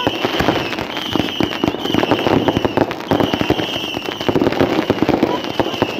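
Many fireworks and firecrackers going off at once: a dense, unbroken run of crackles and bangs, with a high whistling tone that comes and goes over it.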